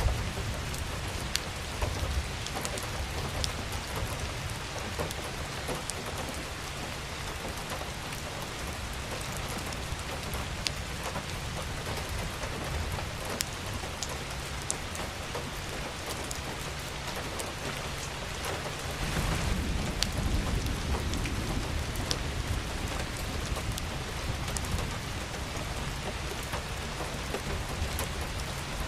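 Steady rain falling, with individual drops ticking sharply close by. A low rumble swells about two-thirds of the way through and lingers.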